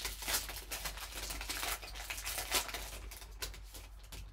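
Foil wrapper of a 2020 Panini XR football card pack crinkling and tearing as it is ripped open by hand: a dense run of sharp crackles.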